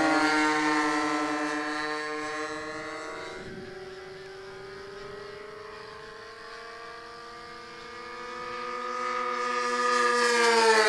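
Two OS 46 AX two-stroke glow engines on a twin-engine RC racer running at full throttle as the model is hand-launched. The drone fades as it climbs away, then swells again as it flies back past near the end, its pitch dropping as it goes by.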